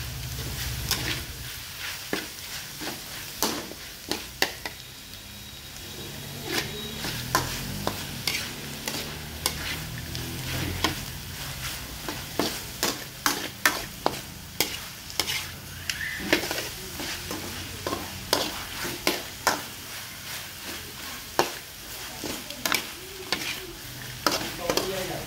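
Metal spatula scraping and clacking against a metal wok as frog meat and turmeric shoots are stir-fried, over a steady sizzle. The strokes come in quick irregular bursts, more often in the second half.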